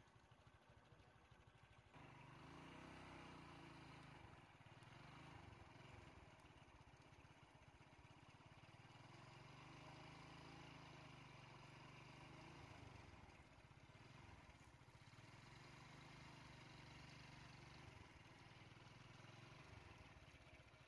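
Faint vehicle engine idling steadily, a little louder from about two seconds in.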